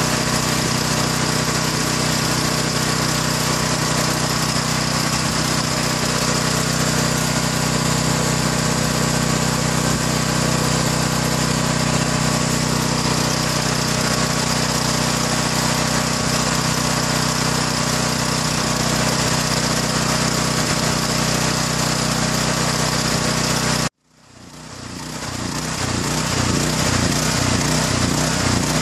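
Champion 7000-watt dual-fuel portable generator's single-cylinder engine running steadily. About 24 seconds in the sound drops out suddenly and comes back over a couple of seconds, the engine still running, now with a faster pulsing low rumble.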